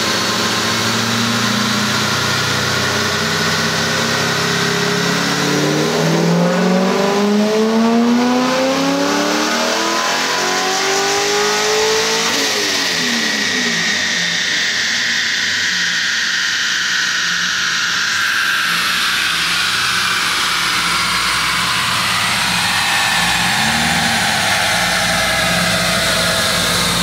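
Supercharged Corvette Z06 V8 with a belt-driven A&A V3 T-trim centrifugal supercharger at 8 psi, making a full-throttle dyno pull. From about four seconds in, the revs climb steadily with the supercharger whine rising alongside them. About twelve seconds in it comes off the throttle, and the revs and whine wind down.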